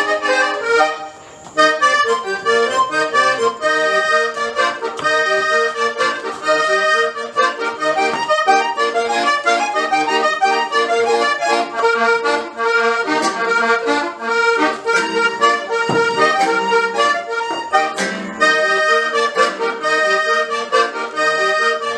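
Accordion music with quick, busy runs of notes, broken by a short pause about a second in.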